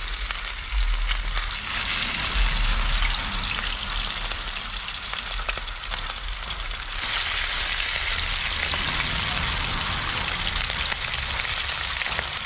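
Fish frying in hot oil: a steady, dense sizzle that grows louder about seven seconds in, with a couple of low rumbles in the first few seconds.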